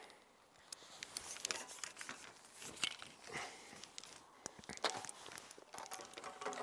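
Faint rustling and crunching with scattered clicks: hands working in a bait tray, gathering and squeezing damp groundbait into a ball for feeding the swim.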